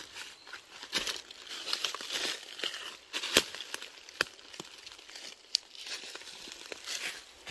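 Dry fallen leaves crackling and rustling in irregular crunches, with one sharper crack about three and a half seconds in.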